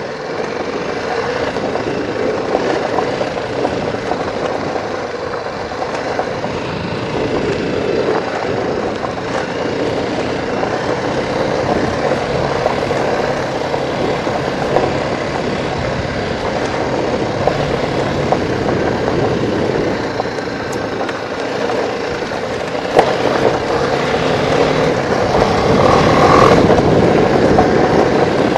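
Off-road motorcycle running along a gravel track: a steady engine note with tyre and wind noise. It gets louder about three-quarters of the way through.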